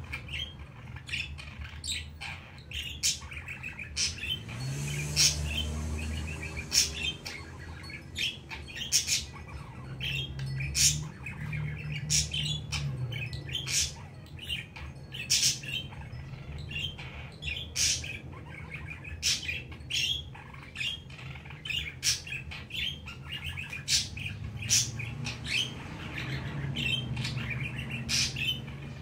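Budgerigar chattering: a rapid run of short, sharp chirps, clicks and squawks coming in quick irregular bursts, over a steady low hum.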